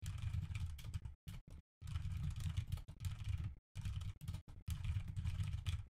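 Computer keyboard being typed on in quick runs of keystrokes, with a few brief pauses between runs as each line of code is entered.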